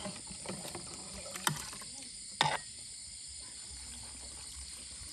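A metal utensil clinks sharply against a metal cooking pot twice, then water is poured from a plastic jug into the pot of simmering bamboo shoots, a low rushing sound near the end.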